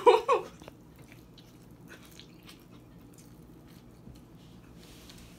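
A person biting into and chewing a slice of pizza, with faint wet mouth clicks. A brief loud sound comes in the first half second.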